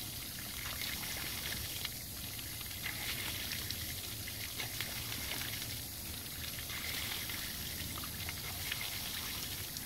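Water pouring from the discharge outlet of a late-19th-century water engine, the water-powered motor once used to pump organ bellows, and splashing onto grass in a steady stream.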